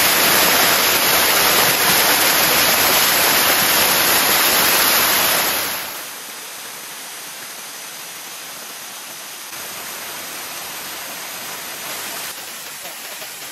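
Waterfall rushing as a steady, even roar of water. About six seconds in it drops sharply to a quieter, more distant rush.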